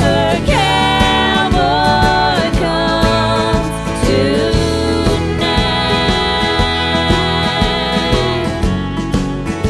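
Background music with a steady beat and a singing voice or lead melody over it, in a country or gospel style.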